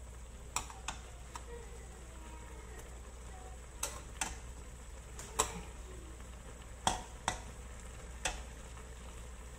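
Metal spatula stirring a coconut milk curry with tofu in a wok, giving about nine sharp, irregularly spaced taps against the pan over a faint sizzle of the simmering sauce.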